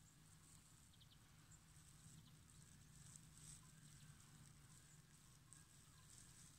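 Near silence: faint outdoor background hiss with a few very faint high ticks.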